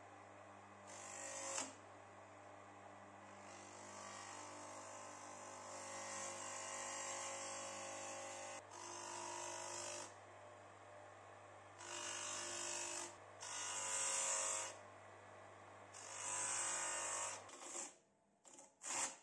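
INGCO electric motor spinning a sanding disc with a steady hum, with repeated stretches of abrasive grinding as the steel hacksaw frame is pressed against the sandpaper to sand it down. The motor stops near the end, followed by a few short tearing sounds as the hook-and-loop sanding sheet is peeled off the pad.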